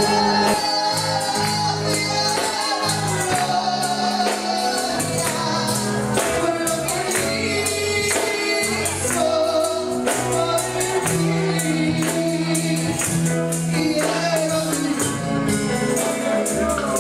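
Live church worship music: a tambourine shaken and struck in a fast, steady beat over held bass notes, with a congregation singing.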